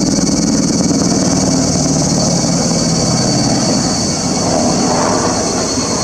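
Loud steady rumble of a passing vehicle, its low pitched drone giving way to a broader mid-range rush after about two seconds, under a constant high-pitched buzz.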